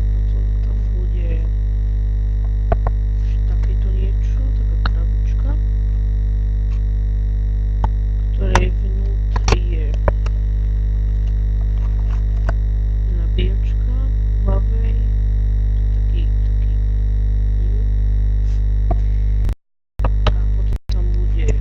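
Loud steady electrical hum and buzz, strongest in the bass, with scattered clicks and light rustles of handling. The sound cuts out twice briefly near the end.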